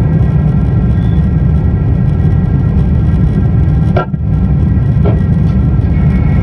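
Jet airliner cabin noise in flight: a loud, steady rumble of engines and rushing air with a few faint steady whining tones above it. A brief knock comes about four seconds in and another about a second later.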